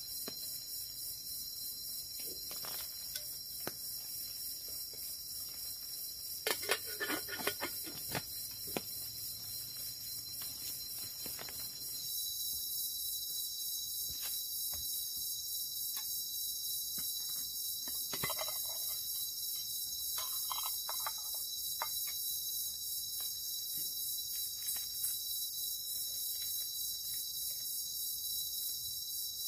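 Steady chorus of crickets and other forest insects: several shrill tones held at once, shifting slightly about twelve seconds in, with scattered small clicks and knocks.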